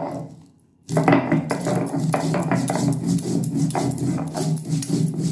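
Spices being ground by hand on a flat stone slab (shil-nora): the grinding stone scraping back and forth, with clicks from glass bangles, starting about a second in. A steady low drone runs under it.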